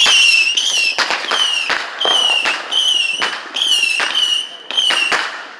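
Fireworks going off in a rapid run: sharp bangs alternating with short high whistles that dip slightly in pitch, about two a second, stopping shortly before the end.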